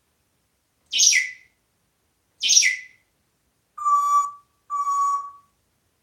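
African grey parrot calling: two short harsh calls, then two steady whistled notes.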